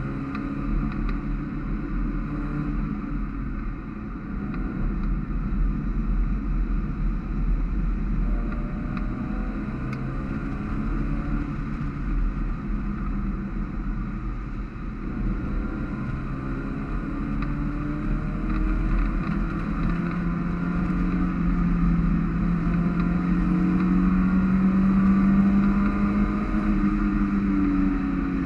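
Mazda MX-5 race car's four-cylinder engine, heard from inside the open cockpit at racing speed, rising in pitch as it accelerates and dropping at each gear change. A steady rush of wind and road noise runs underneath. Near the end comes the longest pull, rising before a shift.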